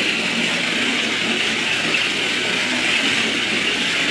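Small radio-controlled toy monster truck driving across a hardwood floor: a steady whir from its electric motor and gears.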